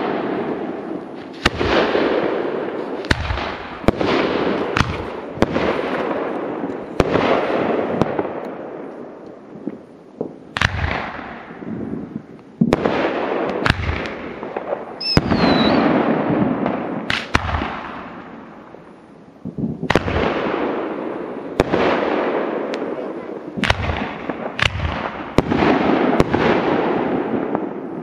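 Firework cake (compact) firing a rapid series of aerial shots: a sharp bang about every one to two seconds, each followed by a hiss of burning stars that fades over a second or two.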